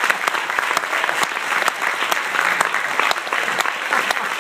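Audience applauding steadily, a dense patter of many hands clapping with a few single claps standing out.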